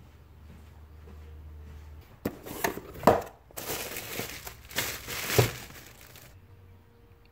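Bubble wrap and a cardboard box rustling and crinkling as a bubble-wrapped motorcycle radiator fan and its wiring are handled and lifted out of the box. The rustling starts about two seconds in, lasts around four seconds and has two sharper crackles.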